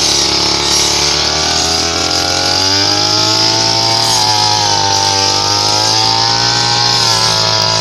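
Brush cutter engine running at high speed while cutting rice stalks, its pitch drifting up and then dipping slowly as the load changes.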